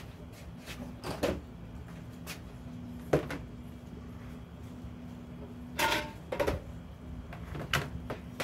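A computer power supply's metal case being handled and taken apart on a tabletop: about five separate clunks and clicks of metal and plastic parts, with a steady low hum underneath.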